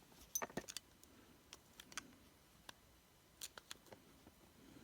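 Faint small clicks and taps of a tiny screwdriver and fingers working on an iPhone's internal screws and parts: a quick cluster of clicks in the first second, then scattered single clicks.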